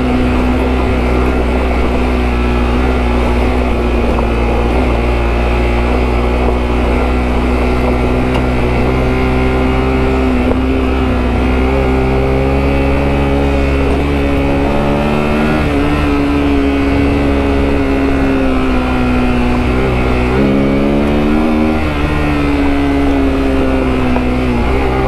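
Sinnis Terrain T125's single-cylinder four-stroke engine running under load off road, its revs holding and then stepping up and down a few times, over a heavy low rumble of wind on the microphone.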